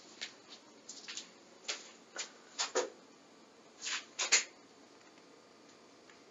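A series of short, irregular scuffs and taps, about a dozen in four and a half seconds, loudest near the end of the run, then they stop and only a faint hiss remains.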